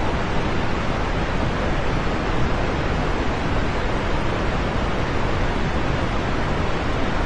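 Steady rain, an even, unbroken hiss with no single drops or thunder standing out.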